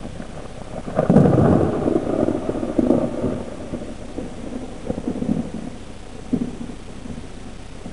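Thunder from a lightning strike: a sudden crack about a second in, then rumbling that rolls on with several lesser peaks over the next few seconds and dies away.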